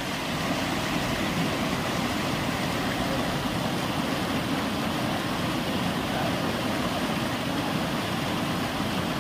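Swollen Teesta river rushing steadily over rocks in white-water rapids, running high after a sudden rise in the water.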